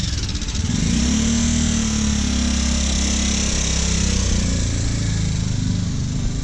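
Motorcycle engine running under way, its revs rising about half a second in, then holding and slowly easing off, over a steady hiss.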